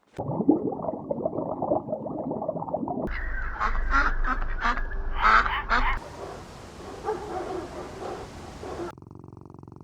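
Waterfowl calling in a flock: a dense chorus of honks and quacks. The sound changes abruptly about three seconds in, again about six seconds in, and once more near the end, as separate recordings follow one another.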